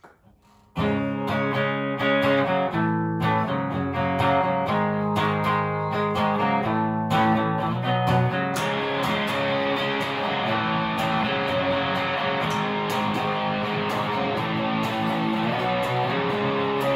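Distorted electric guitar, a Fender Jaguar through a Fender Hot Rod Deluxe amp and SansAmp distortion, starting to play about a second in. It plays distinct held notes at first, then a denser strummed sound from about halfway, recorded on a phone.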